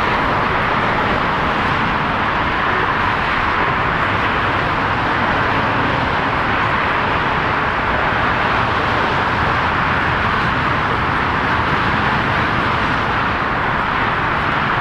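Steady airport noise, an even roar that holds the same level throughout, with no distinct touchdown or reverse-thrust sound standing out.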